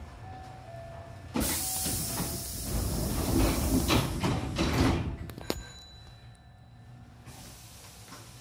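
Hankyu train's double-leaf sliding doors closing: a long hiss of air starts about a second and a half in and runs for about three and a half seconds, with sharp knocks as the door leaves shut. Before the hiss, a faint repeating two-note tone sounds.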